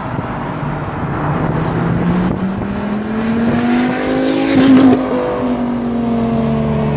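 Dodge Viper's V10 engine with a loud exhaust, accelerating: its pitch climbs steadily to a loud peak just under five seconds in, eases off slightly, then holds as the car pulls away.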